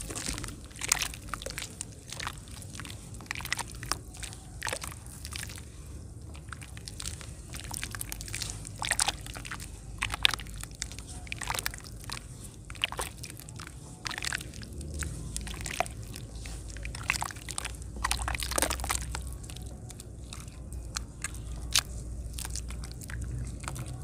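Lumps of dry yellow clay being crushed by hand in a basin of water: irregular crisp crackles and crunches as they crumble, with wet squishing and sloshing of the muddy slurry.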